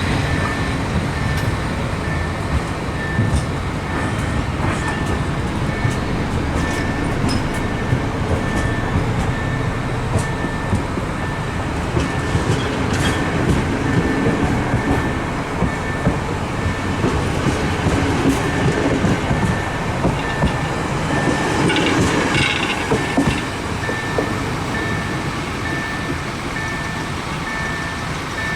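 Train passing close by on the Hel line, wheels clattering over the rail joints with many sharp clicks, and a thin high whine pulsing on and off throughout.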